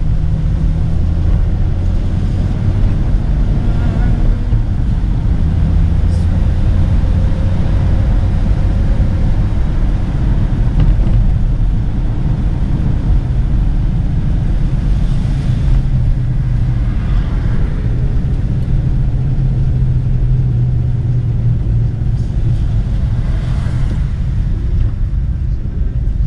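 A Rover P4 100 on the move, heard from inside the car: its straight-six engine runs under a steady road rumble, and the engine note shifts in pitch several times as speed and gears change.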